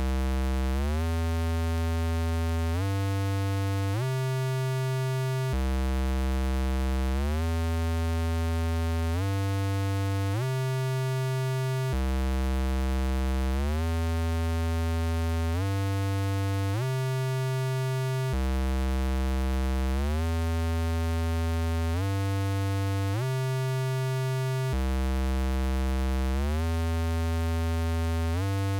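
Vocoded synthesizer tone, buzzy and rich in overtones, climbing in four short upward-gliding steps over about six and a half seconds, then dropping back to the low note and repeating the same climb again and again.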